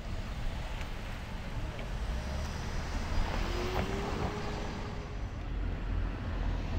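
A car driving close past on a street, its tyre and engine noise swelling and then fading in the middle, over a low steady traffic rumble.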